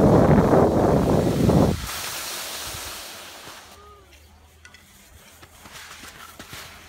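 Wind buffeting the phone's microphone, loud for the first two seconds, then dropping to a faint hiss.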